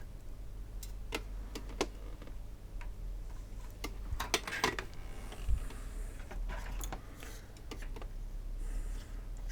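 Scattered small clicks and taps of hand tools on a circuit board as a replacement capacitor is soldered into a power supply, with a steady low hum underneath. The taps come thickest about four to five seconds in.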